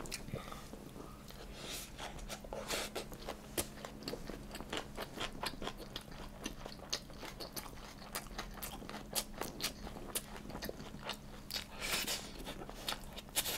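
A person chewing and biting food, with many small irregular mouth clicks.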